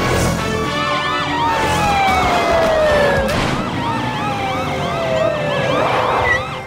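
Cartoon police and fire-truck sirens: a fast, repeating wail with two long tones that each slide down over about two seconds, fading near the end.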